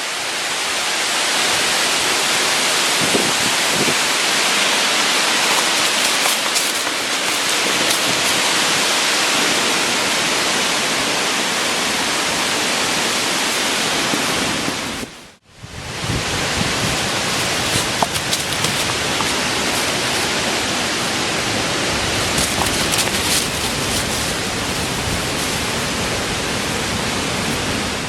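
Steady rushing noise of stormy weather, wind and rain, that briefly cuts out about halfway through and then resumes.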